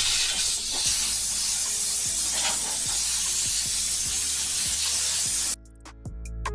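Compressed-air blow gun blasting a steady, loud hiss as it blows water off the wet battery compartment of a golf cart; the air cuts off abruptly about five and a half seconds in.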